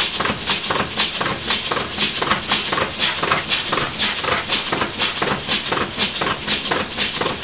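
Large model oscillating (wobbler) steam engine running on about 20 psi of compressed air. It gives a steady rhythmic beat of exhaust puffs and knocks, roughly two strong beats a second. The thumping is a hammering at the end of each stroke, which the builder put down to its needle bearings; air is leaking all over the place.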